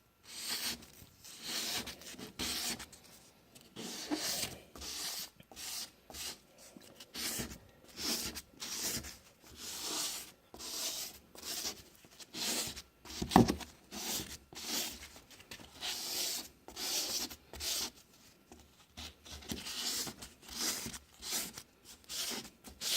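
Lubricated abrasive pad from a headlight restoration kit rubbed by hand back and forth over a plastic headlight lens, with steady rasping strokes a little under two a second.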